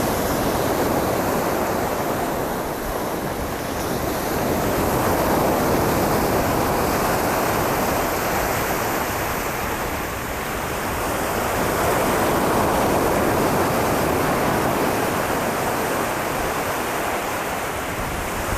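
Ocean surf: a steady rush of waves breaking and washing in, swelling and easing about every seven seconds.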